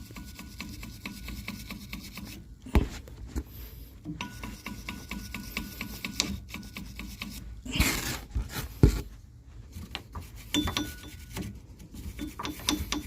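Steel wire brush scrubbing a treadmill's drive motor pulley, a rapid scratching rasp, to clean off the grime behind a squeaking drive belt. A couple of sharp knocks come about 3 and 9 seconds in.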